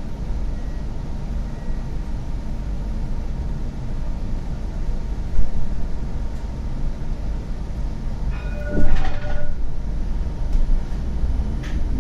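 CAF Urbos 100 coastal tram running: a steady low rumble, with a sharp knock about five seconds in and a brief shrill tone of several pitches lasting about a second around nine seconds in.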